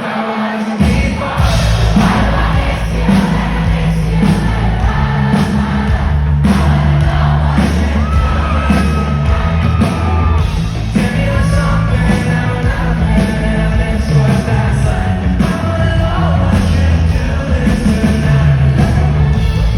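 Live rock band playing loud and full, with the bass and drums coming in about a second in, and crowd voices whooping and yelling over it.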